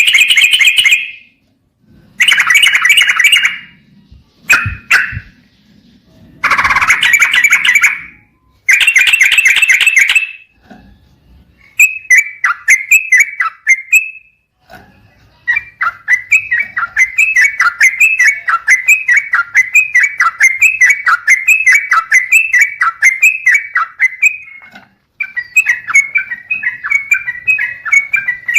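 Yellow-vented bulbul calling. First come several loud bursts of bubbling chatter, each about a second long. From about twelve seconds in, a long run of rapid, repeated chirping notes follows.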